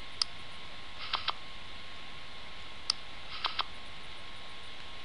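Online poker game's sound effects: single sharp clicks and two quick runs of about three clicks, as chips are bet and cards dealt, over a steady hiss with a faint steady hum.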